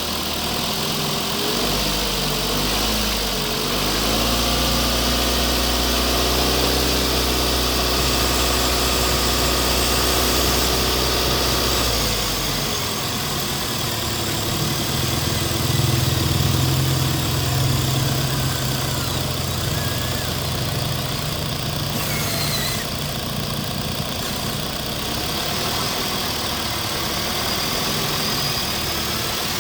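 RC construction machines running: a steady engine-like hum that shifts pitch about 4 and 13 seconds in, with a thin motor whine gliding up and down over it.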